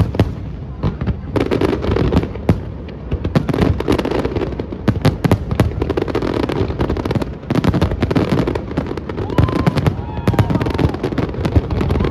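Aerial fireworks bursting in rapid, dense succession: a continuous volley of sharp bangs and crackles over a low rumble.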